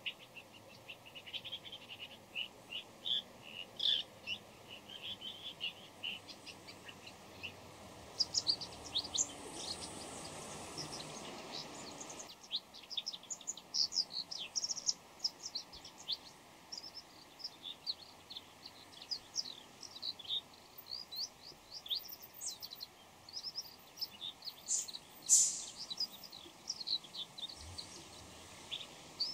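Bull-headed shrike calling in a long, rambling run of short, varied chirps and squeaky notes. The uploader wonders whether this is call, song, subsong or mimicry of other birds. A rushing hiss runs under it for a few seconds midway and stops abruptly, and one sharper, louder note comes near the end.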